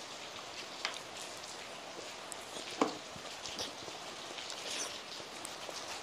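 Heavy rain falling steadily, an even hiss, with a few short sharp clicks over it, the loudest about halfway through.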